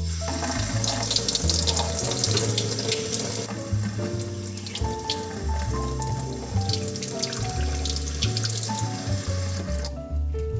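Water running steadily from a kitchen tap into a sink, stopping near the end, over background music.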